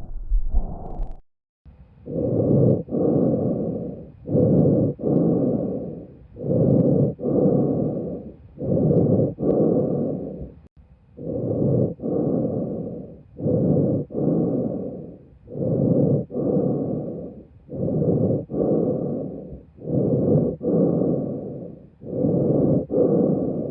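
Human breath sounds recorded through a stethoscope: a steady run of about eleven breaths. Each breath is an inhalation and an exhalation of similar length with a short pause between them. The sound is a noisy rush with no musical tone, broken by a brief silent gap about a second in.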